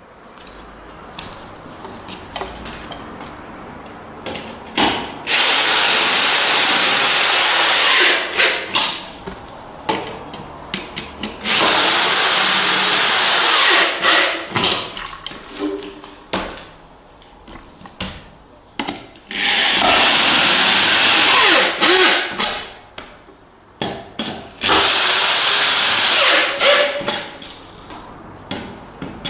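Power drill-driver run four times in spells of about two to three seconds, tightening the joists down onto the floor anchor bolts. Between the spells there are lighter clicks and knocks of handling.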